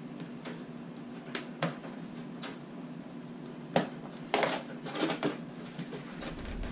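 Plastic egg-incubation containers being handled and set down inside a plastic tub: a few sharp knocks and rattles, the loudest about four seconds in, over a steady low hum.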